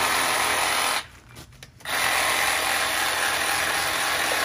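Cordless reciprocating saw running as it cuts through a bluefin tuna carcass. It stops for about a second, then starts again.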